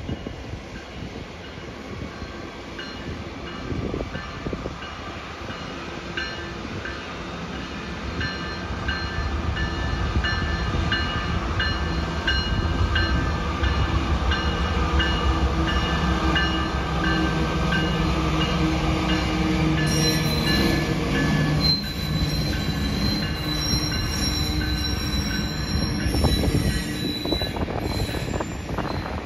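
A Canadian Pacific GE ES44AC diesel locomotive's engine rumbles, growing louder as it approaches and passes. Loaded steel coal cars then roll by with high-pitched wheel squeal in the later part.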